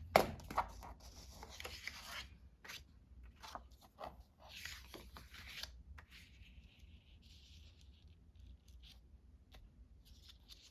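Paper and art supplies handled at a desk: a sharp tap at the start, then scattered scratchy rustles and small taps, and a faint steady scratching from about six to nine seconds in.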